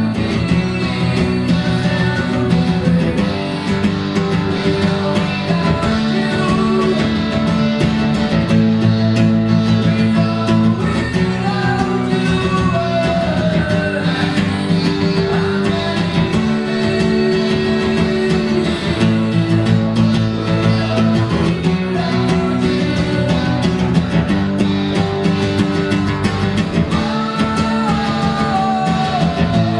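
Live music from an acoustic guitar and an electric guitar playing together through a PA. Strummed chords run underneath while a lead line slides and bends up and down in pitch.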